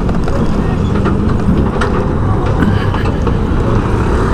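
Steady road and engine noise of a moving vehicle: a low rumble with a constant engine hum.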